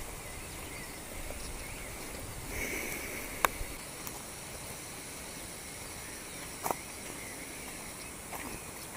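Forest ambience: a steady, high insect buzz, with two short sharp clicks, one about three and a half seconds in and another near seven seconds.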